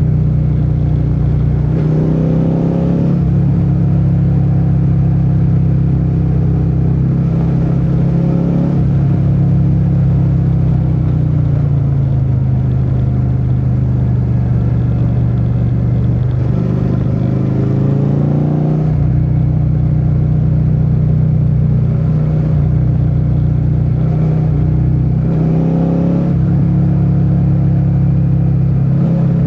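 Suzuki SV650's 90-degree V-twin engine running under way, its pitch rising several times as it is revved up and dropping lower for a few seconds midway.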